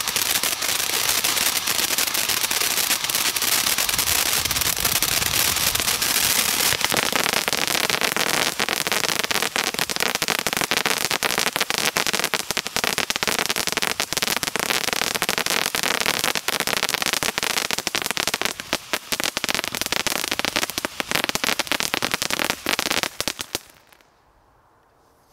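Zeus Orion Fountain, a ground fountain firework, burning with a steady rushing hiss of sparks and dense crackling. Near the end the crackling thins out and the fountain burns out, stopping suddenly.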